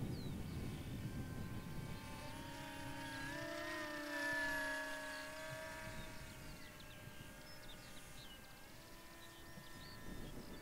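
Twin brushless electric motors and propellers of a T-1 Ranger RC flying wing whining in flight, heard from the ground. The pitch shifts with the throttle and is loudest about four seconds in.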